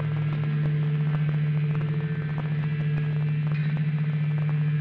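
Dark ambient noise drone: a steady low electrical-sounding hum with scattered crackling clicks over it.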